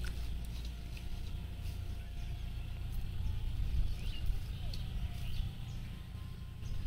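Outdoor ambience by a pond: a steady low rumble with faint, scattered bird chirps.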